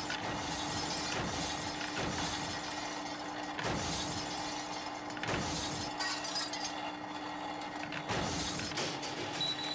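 Toy train barrel loader running: a steady electric hum, with small barrels clattering as they tip into the gondola car every couple of seconds.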